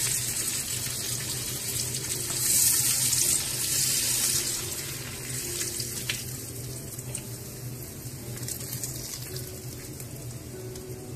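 Chapli kebabs frying in shallow oil in a pan, a crackling hiss that slowly dies down. A low steady hum runs underneath.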